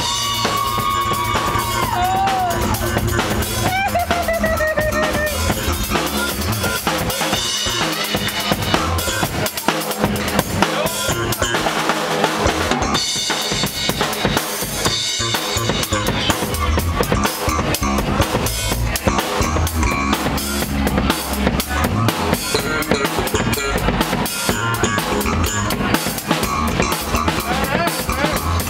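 Live funk groove with the drum kit out front: steady kick drum, snare and rimshots keeping a busy beat under other instruments.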